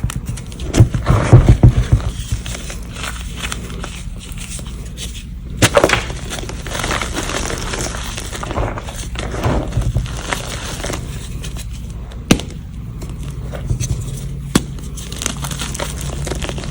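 Air-dried dyed gym chalk reforms being crushed: bursts of crunching and crackling, the loudest about a second in, with a few single sharp snaps later on.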